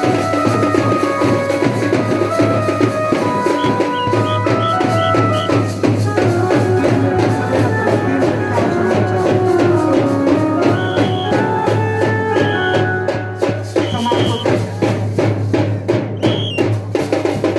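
Music with a steady drum beat and melodic instruments.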